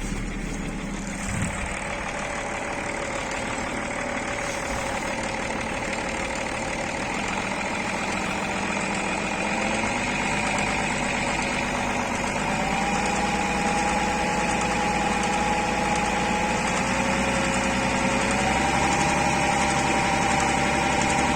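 BMW E39's M57 3.0-litre straight-six diesel idling with an intermittent knock that the owner cannot explain. A thin whine over the engine steps up in pitch twice, about halfway through and again near the end.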